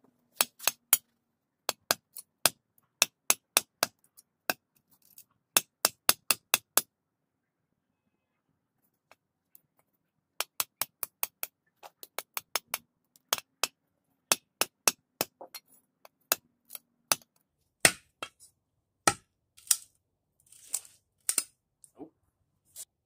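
A small hand-forged steel blade chopping into a wooden stump: runs of sharp, quick blows, about two or three a second, with a pause of a few seconds partway through. The last several blows, near the end, are heavier.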